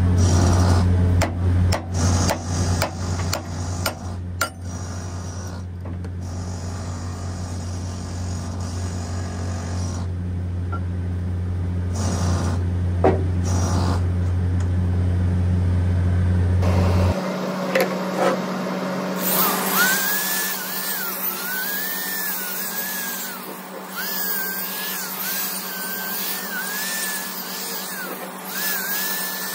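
Several sharp metal knocks on a trunnion cap held in a bench vise, over a steady low hum. About two-thirds of the way through, the hum cuts off and an angle grinder with a wire cup brush runs, its whine dipping and recovering again and again as the brush bites into the metal to clean it.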